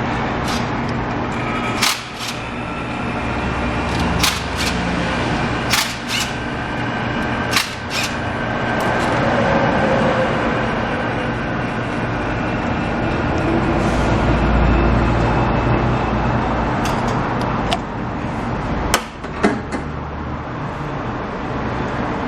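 A machine running with a steady hum and a low rumble that swells in the middle, with a dozen or so sharp metallic clicks and knocks, like tools being handled, scattered through it.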